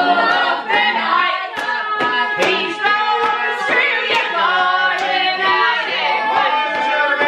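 A group of people singing together in a loose sing-along, with hand claps scattered through it.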